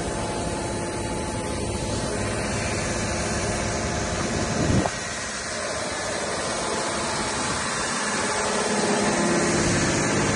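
Truck engine running steadily while liquid hisses out of the spray bar across the back of a road-spraying truck onto the road, with a brief low thud about halfway through.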